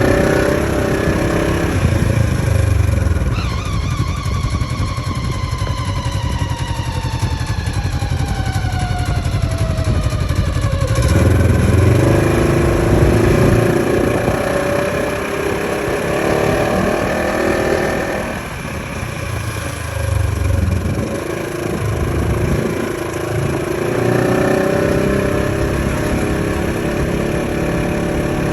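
Polaris RZR XP 4 1000 side-by-side running, with a whine over the engine that glides in pitch with speed: one long falling whine in the first half, rising again twice later. The owner puts the whine down to the gearbox, transmission or clutch.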